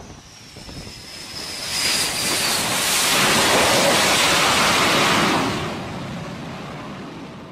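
Fighter jet's engines passing close along a carrier flight deck: a high turbine whine sinking slowly in pitch, then a loud rushing roar that swells for about four seconds and fades away.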